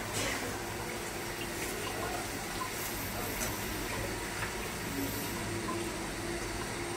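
Semai vermicelli frying in ghee in a pan, a steady sizzling hiss, with a few light clicks and scrapes of a metal spatula as it is stirred.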